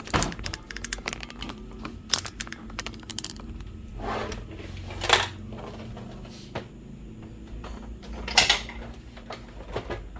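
Scanner unit of a Brother DCP-T310 inkjet printer being fitted back onto the printer's plastic body: a run of small plastic clicks and knocks, with a few louder brief rubbing knocks about four, five and eight and a half seconds in.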